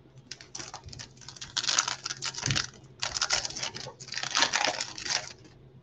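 Trading card pack wrapper crinkling and tearing as it is opened by gloved hands: rapid crackling in three spells, the loudest near the middle and towards the end.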